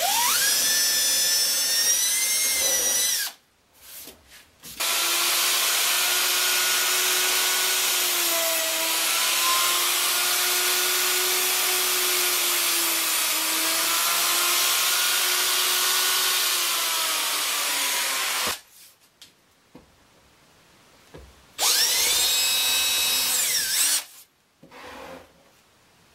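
Cordless drill spins up with a rising whine and drills a hole for about three seconds. A Maktec plunge router then runs steadily for about fourteen seconds, its hum wavering a little as it routes a groove in a board. Near the end the cordless drill runs again for a couple of seconds.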